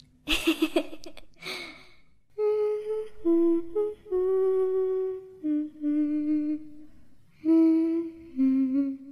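A single voice humming a slow tune of long held notes that step up and down, like a lullaby. It opens with a short, noisy, pulsing burst of sound in the first two seconds.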